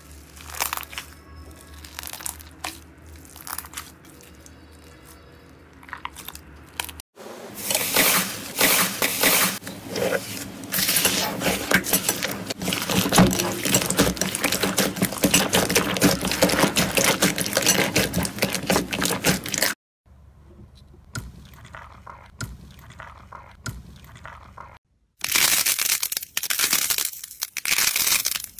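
Hands squeezing and kneading slime, making a run of crackling, popping and crunching sounds. It is quieter at first, turns into a long dense crackle from about seven seconds in to about twenty, and loud crunching comes back near the end.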